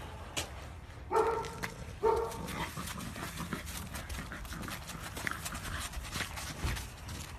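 Chow chow puppy giving two short, high yips about a second and two seconds in, while its dog boots tap and scuff on the pavement as it walks.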